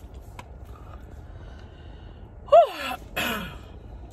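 A woman lets out a loud sigh about two and a half seconds in, its pitch sliding down, followed at once by a breathy falling exhale, the sound of someone full after a big meal.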